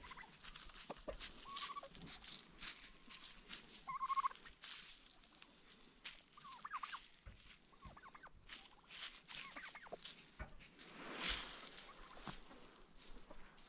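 Domestic turkeys calling: several short calls, the loudest about four seconds in, and a rapid gobble about halfway through. Faint scattered rustling of birds moving and scratching in dry leaf litter.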